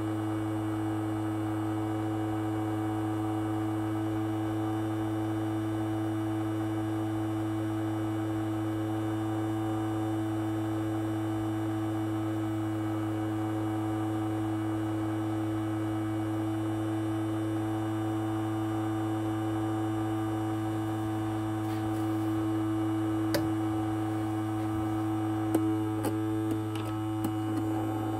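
Ultrasonic cleaner running with coins in its water bath: a steady electric hum that holds unchanged throughout. Near the end, a few light clicks as a metal claw pick-up tool is dipped into the tank.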